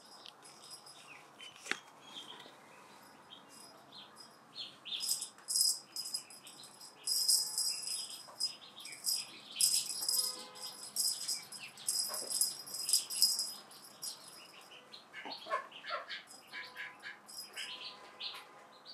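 Hanging cat toy on a bungee cord rattling in quick bursts as it swings and is batted, busiest through the middle. Lighter, shorter rattles and taps follow near the end.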